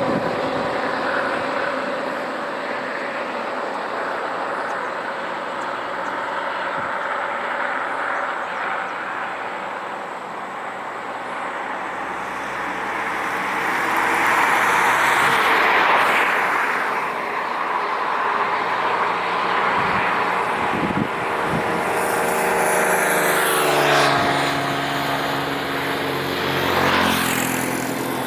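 Motor vehicles passing one after another, their engine and road noise swelling and fading. The loudest pass comes about halfway through, and another vehicle rises in pitch and passes near the end.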